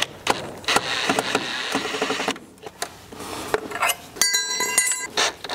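Cordless drill/driver running in short spurts, driving and backing off small screws on a transducer mounting bracket, with clicks and taps of metal parts. About four seconds in, a brief metallic ring.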